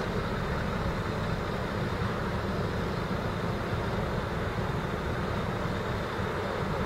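Diesel engines of a wheel loader and a heavy recovery truck running steadily, a low, even rumble.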